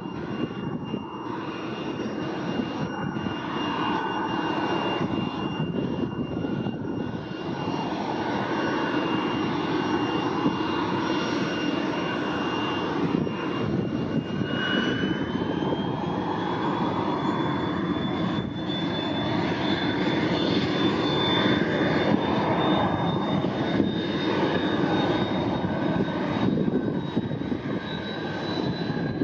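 Sikorsky S-64 Skycrane helicopter running on the ground: a steady rushing engine and rotor noise with a high turbine whine. About halfway through the whine rises in pitch and keeps climbing slowly as the engines spool up ahead of takeoff.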